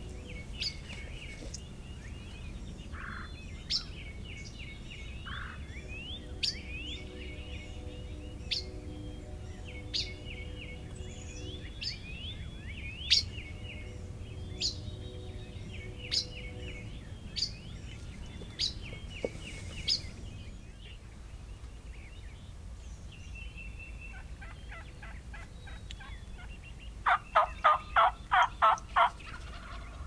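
Wild turkey calling: a loud run of about eight evenly spaced calls, roughly four a second, near the end, with songbirds chirping and sharp calls every second or two before it.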